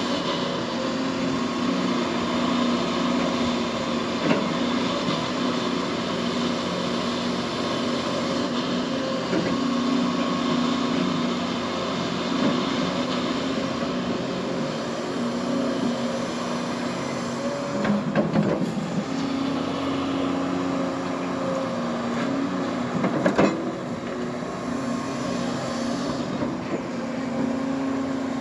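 Hyundai excavator's diesel engine running under load, its note swelling and easing as the boom and bucket move. A few knocks and scrapes of the bucket in gravel, the loudest about 18 and 23 seconds in.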